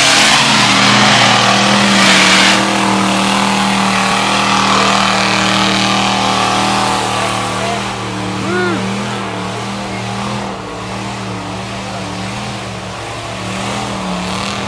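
Mud truck engine running hard as the truck churns through deep mud. A loud rush of spinning tyres and flung mud fills the first couple of seconds, then the engine holds a steady, even drone.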